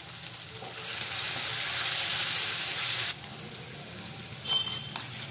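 Onion, potato and tomato pieces sizzling in hot oil in a kadai. The hiss grows louder, then cuts off suddenly about three seconds in, and quieter sizzling follows.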